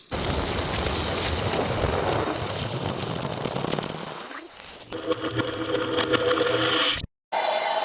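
Sound-effect recordings of extreme-temperature reactions: a dense rushing hiss for about four and a half seconds, then a groaning hum made of several steady tones that cuts off suddenly after about two seconds, followed by a higher steady whine.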